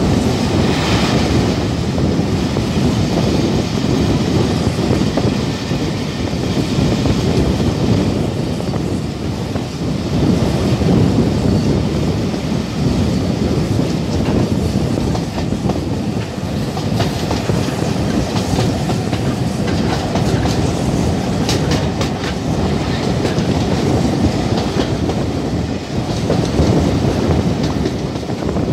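Steam-hauled passenger train running, its carriages rolling along the track with a steady rumble and wind rush, heard from an open carriage window. A quick run of sharp clicks comes about three-quarters of the way through.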